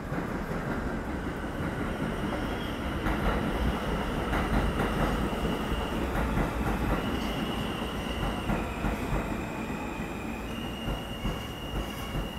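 New York City subway train rolling along elevated track, a steady rumble of wheels on rails. From about a second in, high-pitched wheel squeal holds and shifts in pitch several times.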